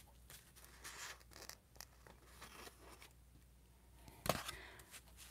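Faint handling noises of cardstock cards being picked up and moved over a craft mat: light rustles and scrapes, with one sharper scrape or tap just after four seconds.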